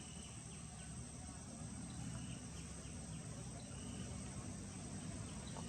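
Insects trilling steadily at a high pitch, with short faint chirps scattered through, over a low rumbling background.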